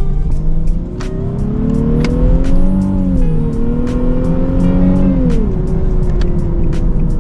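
Nissan 370z Nismo's 3.7-litre V6 pulling gently under light throttle, its note rising, dipping briefly about three seconds in as the automatic shifts up, rising again, then easing off about five seconds in and settling to a steadier, lower cruise over road rumble.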